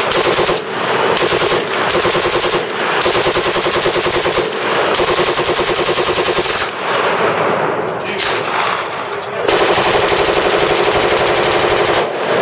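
Full-automatic gunfire: long, very rapid bursts from a MAC-10 submachine gun and other machine guns on the firing line, nearly unbroken, with a few short breaks.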